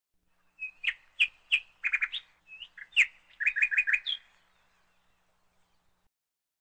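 A songbird singing: a quick run of sharp chirps and short whistled notes, about four seconds long, that stops about four seconds in.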